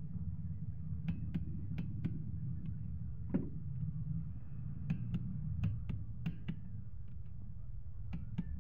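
A dozen or so sharp, irregular metallic clicks from a click-type torque wrench being ratcheted on a Hyundai Eon's connecting-rod cap bolts, which are being torqued to 20 lb-ft, over a low steady background hum.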